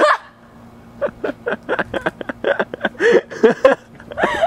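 A person laughing in a quick run of short bursts, louder and fuller near the end, over a faint steady low hum.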